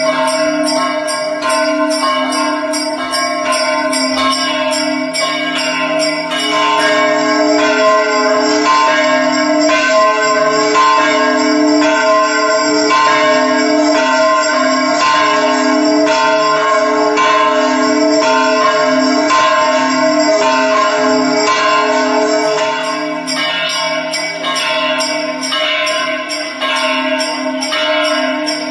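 Large temple bell, presented as the Sigandi Pooranam bell of the Chidambaram Nataraja temple, rung with rapid repeated strokes. Its ringing tones hang on and overlap into one steady, continuous peal.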